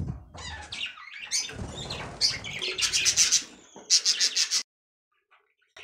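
Budgerigars chirping and chattering, with quick runs of high chirps about three and four seconds in, over a low rustling.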